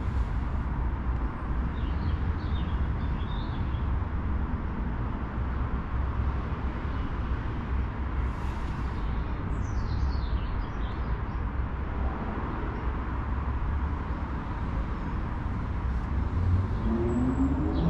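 Steady low rumble of a city trackside, with birds chirping briefly twice. Near the end a rising whine begins.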